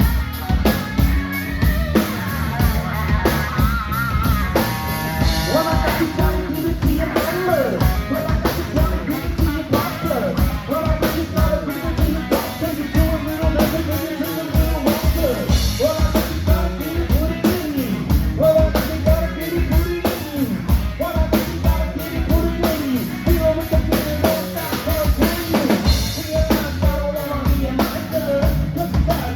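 Live rock band playing, with a drum kit keeping a steady beat under singing and amplified instruments.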